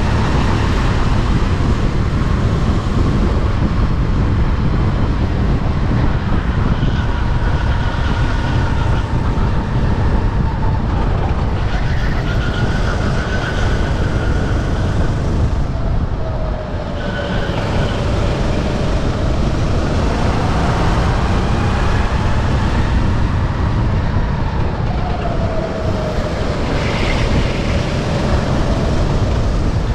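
Sodi RT8 racing kart's engine running flat out on track, over a heavy low rumble. Its pitch rises and falls again and again as the speed changes. The level dips briefly about sixteen seconds in.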